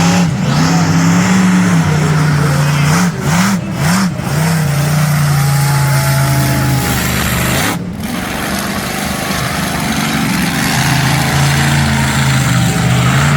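Monster truck engine running loud, with two quick revs up and down about three seconds in.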